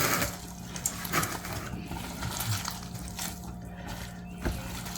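Gloved hands pulling apart hot smoked pork shoulder: irregular wet squishing and tearing with small clicks, over a steady faint hum.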